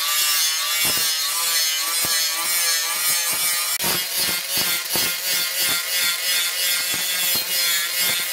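Electric angle grinder with a sanding disc grinding the steel blade of a cleaver, a harsh abrasive hiss over a motor whine that wavers in pitch as the disc is pressed into the metal. Scattered short knocks run through it.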